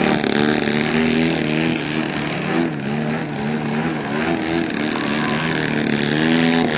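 Radio-controlled model airplane's engine and propeller running, its pitch wavering up and down with the throttle as the plane hovers nose-up.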